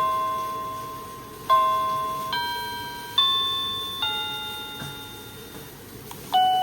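Electronic doorbell chime playing one of its ringtones: a short tune of bell-like notes, each struck and fading, a little under one a second, the last note held longer before the next tune starts near the end.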